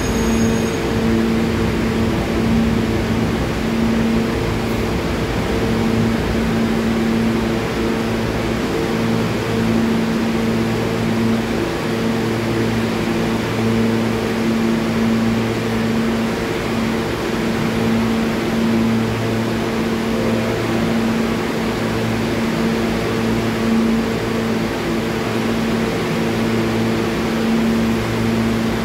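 Parked R68 subway car humming steadily while it stands at the platform, its onboard electrical and ventilation equipment running. A low two-note drone swells and fades every few seconds over a steady hiss.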